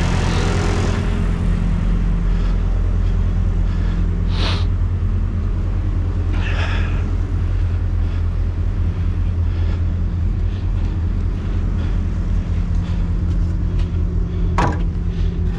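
Idling diesel engine of a heavy truck rig: a steady low rumble, with a few brief sharp noises on top, the clearest near the end.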